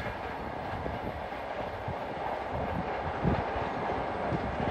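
Indian Railways LHB passenger train running at a distance on electrified track, a steady train noise with a few low thumps.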